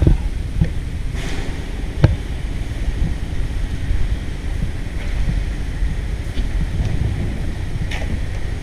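Wind buffeting the camera microphone as a steady low rumble, with a few sharp knocks, the loudest about two seconds in.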